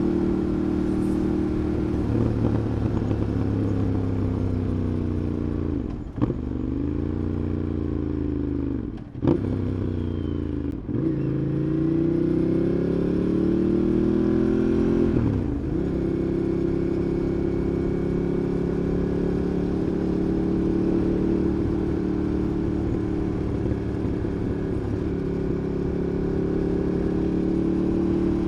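Ducati Monster 821's 821 cc L-twin engine heard from the rider's position while riding in traffic. Between about six and sixteen seconds the revs rise and fall several times with sharp breaks at gear changes, then the engine settles into a steady cruise.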